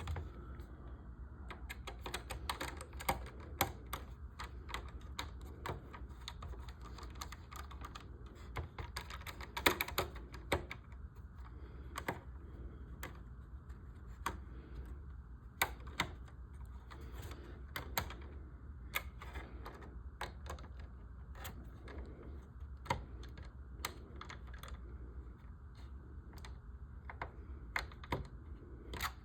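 Irregular light clicks and taps of a small screwdriver and model-kit parts being handled while small screws are driven into the model's pieces, over a low steady hum.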